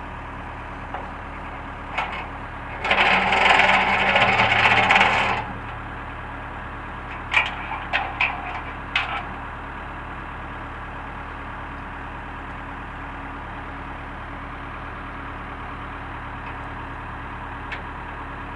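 Backhoe engine idling steadily, with a loud rattling clatter lasting about two and a half seconds near the start, then a handful of sharp knocks a few seconds later.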